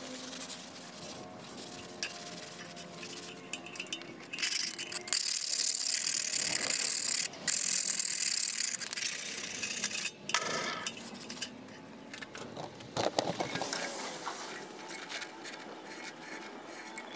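Sandpaper scrubbed by hand over a hardened bearing-steel blade, a harsh hiss broken into strokes between about 4 and 11 seconds in, taking off the quench scale so the tempering colours can be seen.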